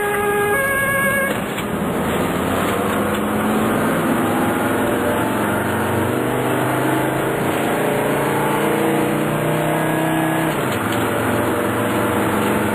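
Ambulance's two-tone siren sounding, cutting off about a second in. Its engine then pulls with slowly rising pitch as the vehicle accelerates, dropping back near the end at a gear change, heard from inside the cab.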